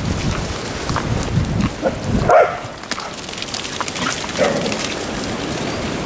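A dog barks sharply about two seconds in and once more, less loudly, about four seconds in, over footsteps and paws squelching on a muddy, leaf-strewn track.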